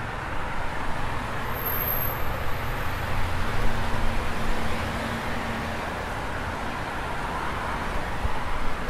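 Steady city traffic noise: the even hiss and low rumble of passing road vehicles.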